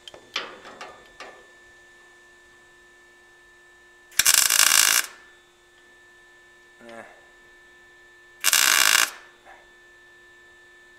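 Two tack welds, each a burst of welding noise about a second long, some four seconds apart: a steel nut being tacked onto the sheet-metal hood side panel. A steady faint hum runs underneath.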